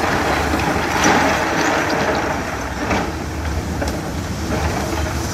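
Hyundai 210 crawler excavator's diesel engine running steadily under load as its bucket pushes through a pile of broken rock, with a few sharp knocks of stone.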